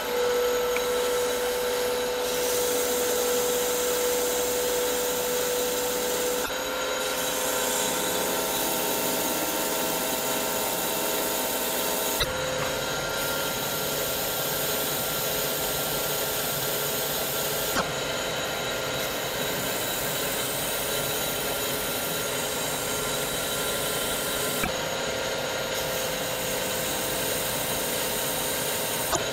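Metal lathe running while a CBN insert turns the shank of a sintered tungsten carbide end mill in light 0.1 mm diameter passes. It makes a steady hiss with a whine on several held tones, shifting slightly a few times, with a few faint clicks.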